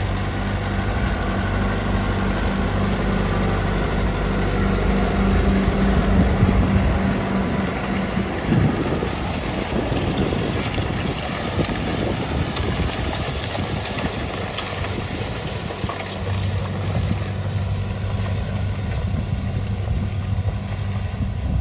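John Deere 6130R tractor's four-cylinder diesel engine running steadily under load while ploughing. The even hum breaks up into a rougher, noisier sound about eight seconds in, then settles back into the steady hum after about sixteen seconds.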